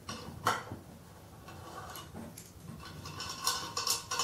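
A 10 mm ratchet backing out a small brass blocking plug from a turbo charge pipe: a sharp click about half a second in, then a run of quick ratchet clicks and light metal clinks near the end.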